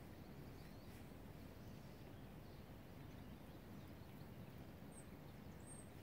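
Quiet woodland ambience: a faint, steady low rumble, with two brief, faint, high bird chirps about five seconds in and near the end.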